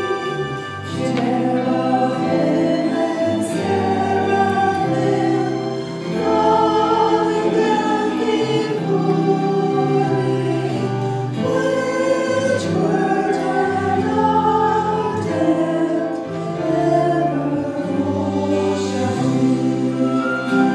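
Mixed church choir of men's and women's voices singing an anthem in sustained chords, the notes changing every second or two.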